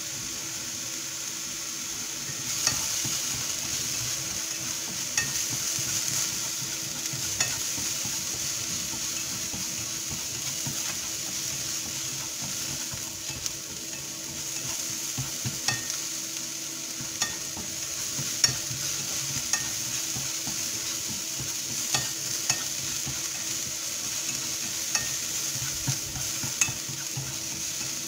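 Mushrooms sizzling steadily in very little oil in a nonstick frying pan, with scattered light clicks as they are turned over by hand.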